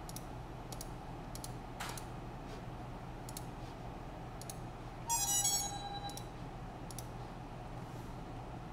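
Computer mouse clicking about eight times at irregular intervals while dialog boxes are dismissed. About five seconds in there is a brief, louder electronic chime with several tones.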